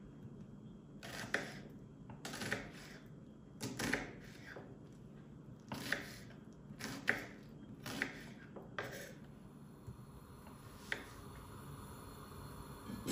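Kitchen knife chopping a peeled onion on a wooden cutting board: about eight separate cuts, each a crisp slice ending in a knock of the blade on the board, spaced roughly a second apart.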